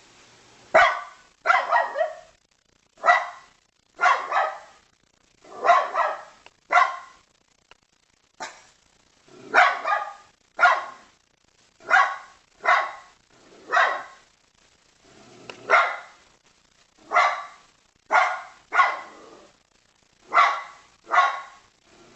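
A dog barking over and over, single barks and quick doubles at about one a second.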